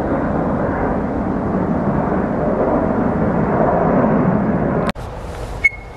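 Jet airliner passing overhead: a steady rumble that swells a little, then cuts off abruptly about five seconds in. A quieter stretch follows with one short sharp click near the end.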